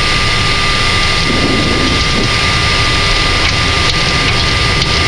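Loud, steady flight-deck noise of a Boeing 747-400 at takeoff power through rotation and lift-off: a rushing of engine and airflow noise over a low rumble, with a thin steady high tone.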